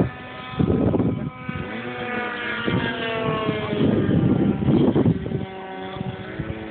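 RC model plane's motor and propeller whining overhead, its pitch slowly falling as it passes by.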